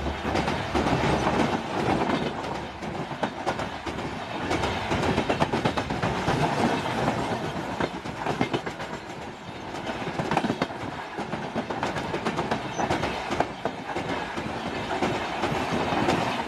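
Humsafar Express passenger coaches passing close by, their wheels clattering over rail joints in a steady run of sharp clicks over a continuous rolling rumble.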